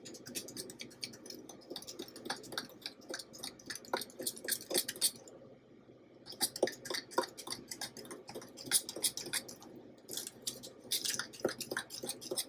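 Metal spoon stirring a thick powdered-sugar glaze in a measuring cup: a quick, uneven run of small clicks and scrapes against the cup, pausing briefly about halfway through.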